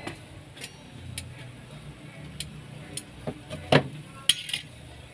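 Charcoal fire under banana-leaf-wrapped squid giving scattered sharp crackles and ticks, with a couple of louder knocks late on.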